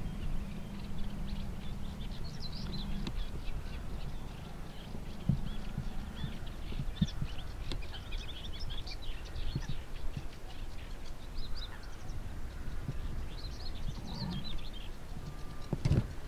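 Small birds singing, a busy run of quick chirps and trills, over a low steady rumble, with a few dull thumps, the loudest near the end.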